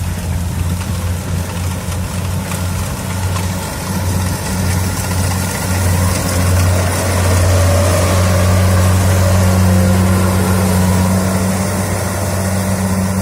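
Kubota DC70 rice combine harvester running steadily, its engine a constant low drone that grows louder about seven seconds in and eases a little near the end.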